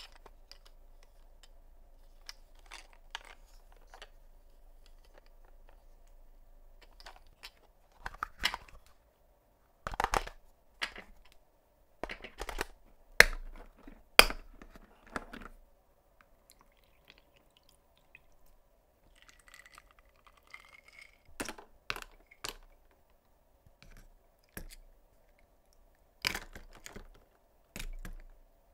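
Hard plastic toy trailer handled and its parts fitted together: scattered clicks, knocks and rattles, with two sharp snaps about halfway through as its clear plastic lids are pressed into place.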